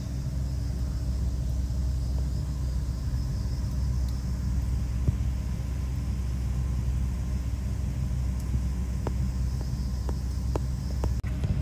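Steady low mechanical rumble and hum, with a few faint clicks near the end.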